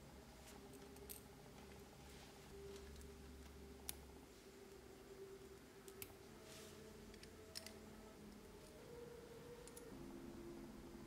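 Small model-kit parts handled and fitted together by hand: a few faint, sharp clicks, the loudest about four seconds in, over near-silent room tone.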